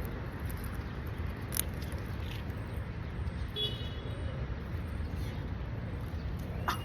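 Outdoor background noise: a steady low rumble with a few faint clicks and a brief high chirp about three and a half seconds in.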